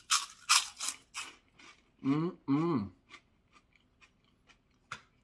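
A crispy pork rind crunched between the teeth: four loud crunches in the first second or so. Then comes a short two-note hum from the eater with his mouth closed, then softer chewing crunches about three a second, with a sharp click near the end.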